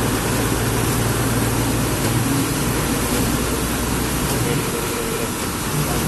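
Bus engine running with a steady low drone, heard from inside the cabin under a constant hiss of rain and wet-road tyre noise.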